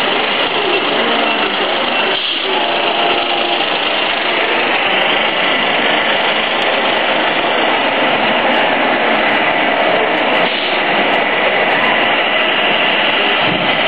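Radio-controlled scale model trucks driving, their electric drive motors and gearboxes whirring steadily over a constant background din.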